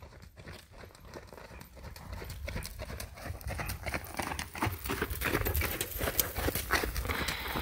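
Horse's hoofbeats on sand arena footing, a quick run of strikes growing louder as the horse comes up close.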